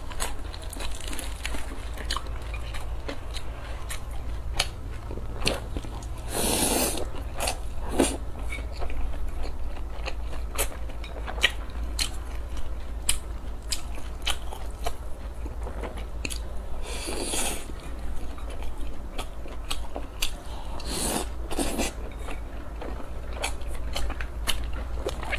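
Close-miked chewing and biting of a crisp hand-held scallion pancake with lettuce: a steady run of small crunches and mouth clicks. There are louder, longer bites about six seconds in and again around 17 and 21 seconds.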